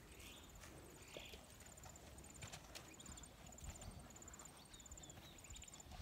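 Near silence: faint outdoor ambience with a soft, high chirping repeated about twice a second and a few scattered faint ticks.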